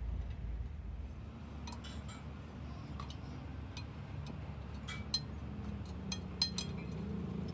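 Scattered light metallic clinks and ticks, as of metal parts or tools being handled, a few louder ones near the end, over a low steady hum.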